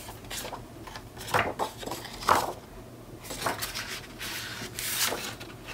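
Sheets of patterned paper and cardstock being handled and slid across a cutting mat: a series of short rustles and light taps.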